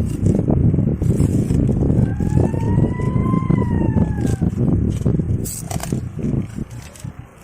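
Marmot giving one long scream of about two and a half seconds, rising and then falling in pitch, over heavy wind rumble on the microphone and scattered clicks.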